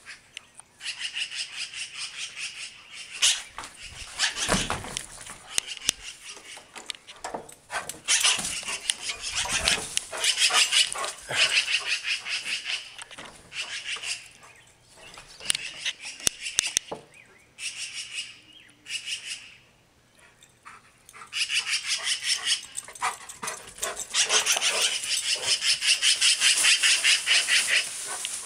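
Magpies giving harsh, rapid rattling chatter in several loud bouts with short gaps between them: alarm and mobbing calls at a dog that has flushed their young.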